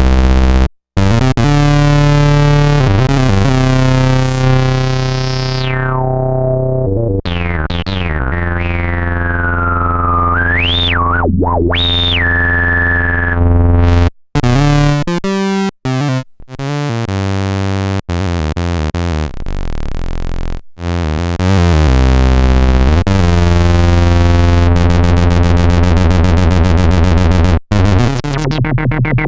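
Roland SH-101 monophonic analog synthesizer playing sustained low notes rich in overtones, with a resonant filter sweeping down and back up partway through. The notes break off briefly several times, and near the end the tone pulses rapidly.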